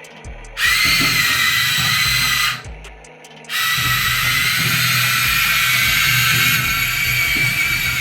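Electric motors of a Huina 1593 1/14-scale RC excavator whining as it is driven: one run of about two seconds, then after a short pause a longer steady run that carries on to the end.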